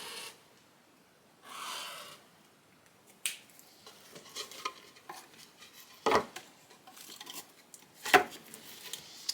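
Hands working at a shop bench: a short scratchy rubbing stroke right at the start and another about two seconds in, then scattered light knocks and clatter of tools and materials being handled, with two sharper knocks near 6 and 8 seconds.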